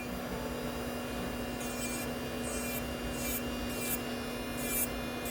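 Melody Susie Atena cordless electric nail drill running with a steady hum while its bit files dip powder off a fingernail, the grinding coming in short rasping strokes about every half second from about a second and a half in.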